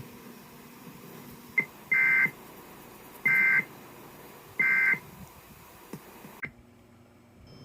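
Three short warbling data bursts, roughly a second and a bit apart, from a NOAA Weather Radio broadcast: the SAME (Specific Area Message Encoding) end-of-message tones that close the flash flood warning, heard over radio hiss that cuts out abruptly near the end.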